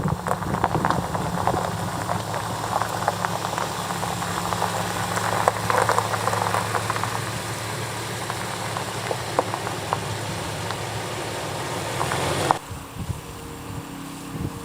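Car engine running steadily with crackling clicks over it. About twelve and a half seconds in it cuts off abruptly to a quieter, higher-pitched hum.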